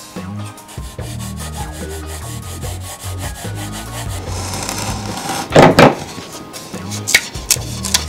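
Hand sanding of wooden edge banding with a sanding block, in quick rubbing back-and-forth strokes. About two-thirds of the way through, a utility knife cuts the banding, with a short sharp rasp that is the loudest sound.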